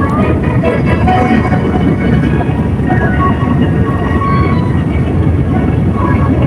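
Steady, loud rumble inside an airliner cabin: engine and airflow noise filling the cabin, with faint passenger voices under it.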